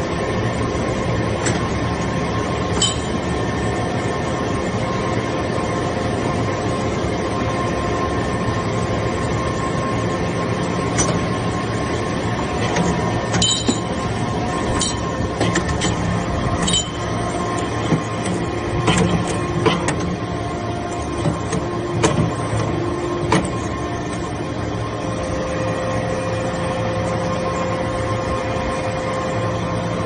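TCM hydraulic metal-chips briquetting press running: a steady hydraulic hum with several constant tones, and scattered metallic clicks and knocks, most of them in the middle stretch.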